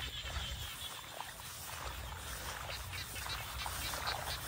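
Frogs croaking in a rice paddy: short, irregular calls that grow more frequent near the end, over a low steady rumble.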